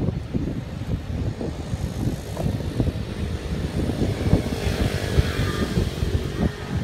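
Gusty wind rumbling on the microphone, with a fainter hiss swelling about halfway through that may be a passing vehicle.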